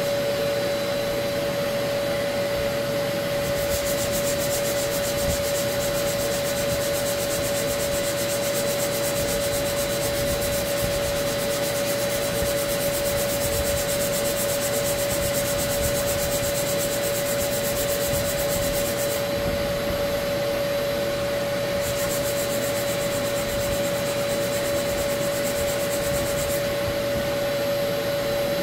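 Dust extractor or shop vacuum running steadily, a constant drone with a strong steady hum. A higher hiss comes in for long stretches, about four seconds in and again later.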